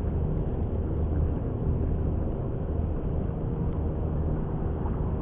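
Steady low engine-like rumble with a faint hum.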